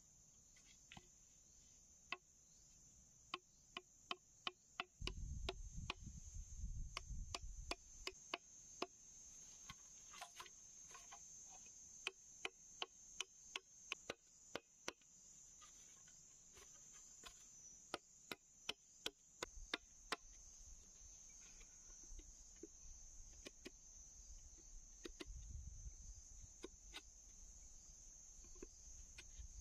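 Machete blade chopping and tapping at the end of a green bamboo tube: a long run of sharp, irregular knocks, one or two a second, thickest in the first two-thirds. Insects keep up a steady high-pitched drone behind them.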